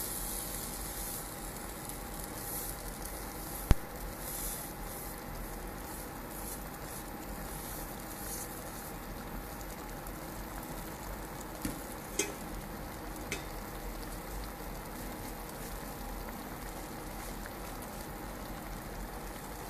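Water boiling in a non-stick kadai with vermicelli just added to cook, a steady bubbling hiss. One sharp knock about four seconds in and a few softer clicks around twelve to thirteen seconds.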